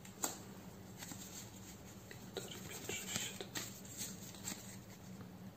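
Trading cards being handled and flipped through: faint rustling and light clicks of card stock, with a sharper tap just after the start.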